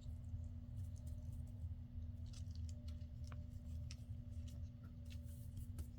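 Small scattered clicks and rustles of paper and cheesecloth being handled and pressed down during gluing, over a steady low hum.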